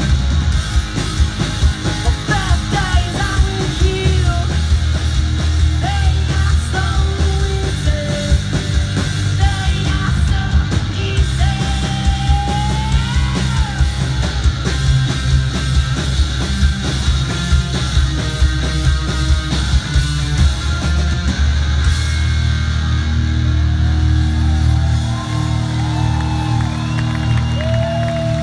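Three-piece rock band playing live through a PA: electric guitar, bass guitar and a driving drum beat at full volume, with sung vocals over it.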